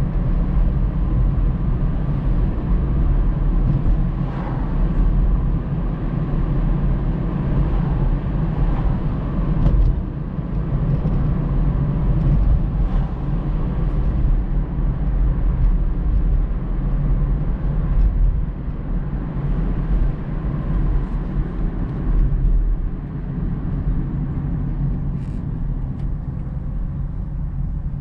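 A car's road and engine noise heard from inside the cabin while driving: a steady low rumble with tyre hiss, easing a little near the end.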